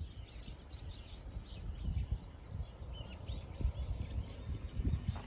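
Small birds chirping busily, many short high chirps in quick succession, over a low, uneven rumble.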